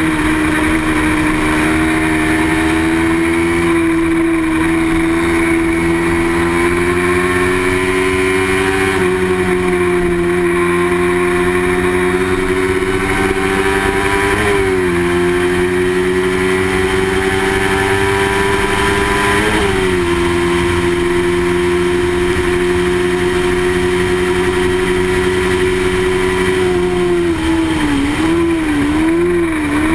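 Racing motorcycle engine held at high revs, its pitch climbing slowly in each gear and dropping sharply at upshifts about 9, 14 and 19 seconds in. Near the end the pitch wavers up and down several times as the throttle is worked.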